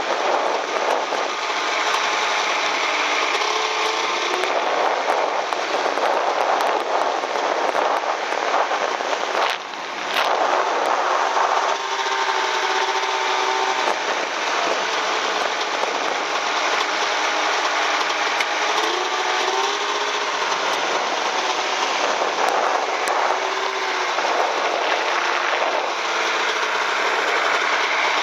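Snowmobile running under way across snow, a dense rattling engine noise whose pitch rises and falls with the throttle, dipping briefly about ten seconds in.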